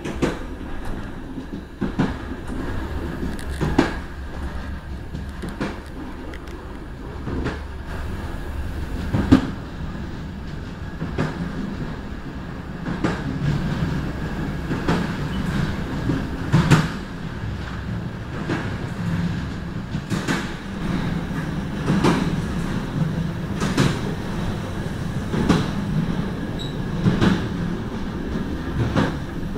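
Passenger train running on a mountain railway, heard from its rear door: a steady rumble of wheels on rails, broken by irregular clacks over rail joints. The rumble grows louder about halfway through, as the train runs inside a tunnel.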